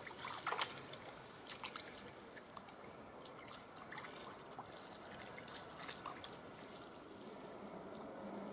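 A small dog wading in a shallow stream: light splashes and drips of water around its legs, busiest in the first second or two, then sparser, over a faint steady trickle of water.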